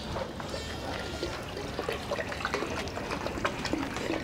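Water splashing and dripping in a metal bucket as a hand dabbles in it: small, irregular plops and trickles.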